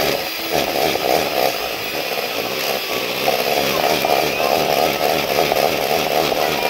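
Electric hand mixer running steadily, its beaters whipping a thick hot chocolate mixture in a plastic bowl.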